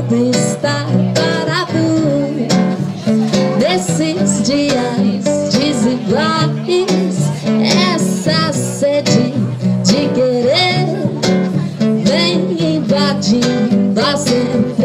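Acoustic guitar strumming chords while a woman sings into a microphone, her voice sliding and bending in pitch.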